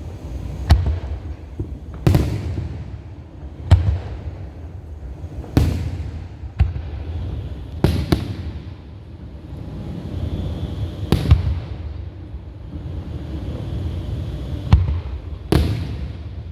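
Aerial fireworks shells bursting: about nine sharp booms at irregular intervals of one to three seconds, with a low rumble of echoing bangs between them.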